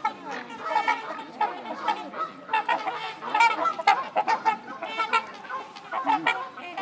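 A flock of trumpeter swans honking together, many short overlapping calls, several a second, without a break.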